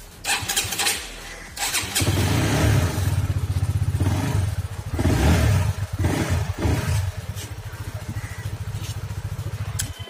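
Honda CBR150R's single-cylinder four-stroke engine cranked on the electric starter and catching about two seconds in. It is blipped a few times, then settles to a steady idle.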